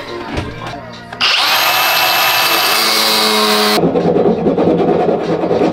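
Small power grinder spinning up with a loud high whine about a second in. Partway through, it gives way to a rougher, lower rasping noise as the shower-hose outlet fitting is cut down about 10 mm.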